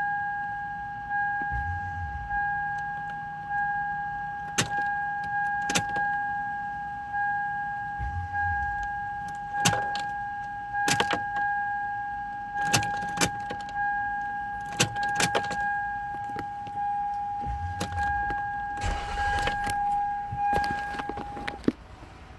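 A car's electronic warning chime sounds a steady high tone that swells about once a second, then stops near the end. Sharp clicks are scattered through it.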